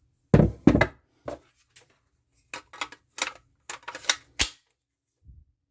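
Handling noise of hard objects: two heavy knocks, then a quick run of sharp clicks and taps.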